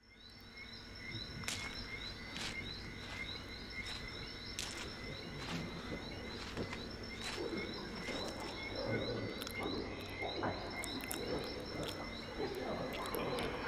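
Night-time chorus of crickets and frogs, a steady, evenly repeating high chirping that fades in at the start, with a sharp click every second or so. From about halfway, low irregular rustling sounds join in.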